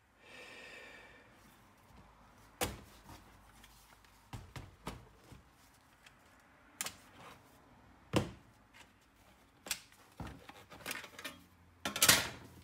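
Scattered sharp clicks and knocks of an HP EliteBook 8470p laptop's plastic case being handled as its bottom service cover is released and lifted off, with a brief rubbing sound at the start and the loudest clatter near the end.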